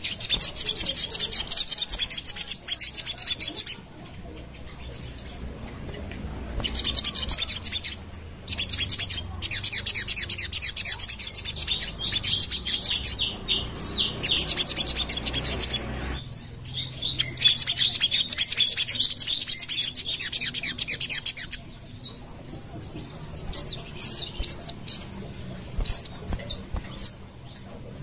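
A sogon (spiderhunter) calling in rapid, high-pitched chattering trills, in bouts of a few seconds with short pauses; the longest bout runs about seven seconds in the middle. Near the end the chatter loosens into separate, spaced notes.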